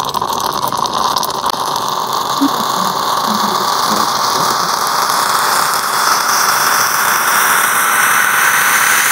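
Stovetop moka pot on a gas burner, hissing steadily with a thin whistle as steam forces the brewed coffee up into the top chamber. The whistle slowly rises in pitch and the hiss grows a little louder over the seconds.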